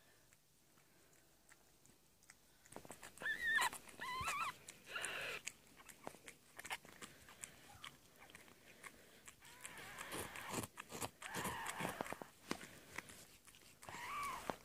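Mother cat licking her newborn kitten clean, with wet licking and smacking sounds, while the newborn kitten gives a few short, high-pitched mews about three to four seconds in and once more near the end. Quiet for the first few seconds.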